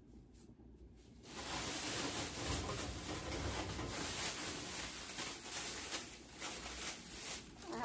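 Plastic snack wrappers and packaging rustling as someone rummages through them, starting about a second in.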